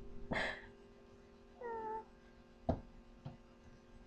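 A short, high-pitched cry with a slight downward slide about one and a half seconds in, after a brief noisy burst near the start; a single sharp smack follows about a second later.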